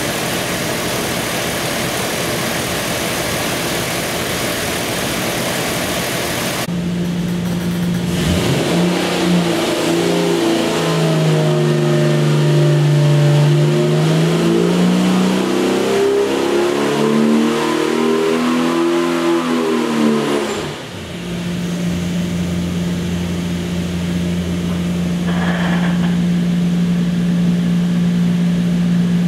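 Jeep 4.6-litre stroker straight-six running hard on an engine dyno. Its pitch sweeps through a pull, dips briefly about 21 seconds in, then holds a steady drone.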